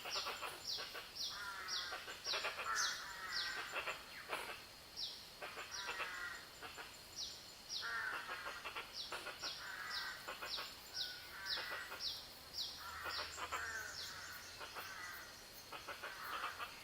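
Forest birds calling together. One bird repeats short, high, down-slurred whistles about two a second, over lower, rapid chattering phrases from another, with a faint steady high whine underneath.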